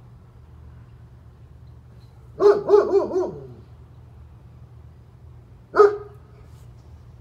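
German Shepherd barking: a quick run of about four barks a couple of seconds in, then a single bark a few seconds later.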